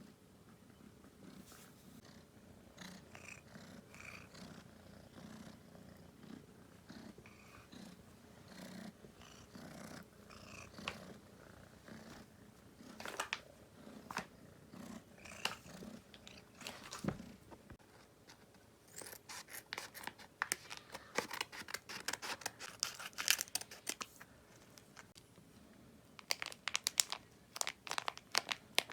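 Domestic cat purring in a steady pulsing rhythm. In the second half, bursts of sharp crinkling clicks come in and cover the purr.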